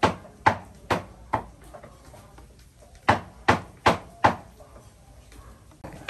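Sharp knocks in two evenly spaced sets of four, a little over two a second, with a pause of about a second and a half between the sets.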